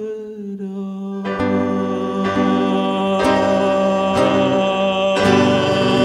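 Closing bars of a live song: a man's voice holds one long low note, then the band of piano, guitar and violin comes in with loud accented chords about once a second, building toward the final chord.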